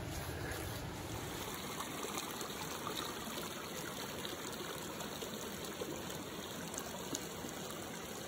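A small, fast creek running over stones, a steady sound of flowing water.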